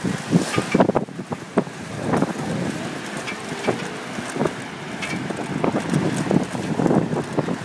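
Wind buffeting the microphone of a camera carried on a moving bicycle, in irregular gusty thumps, over the noise of road traffic alongside.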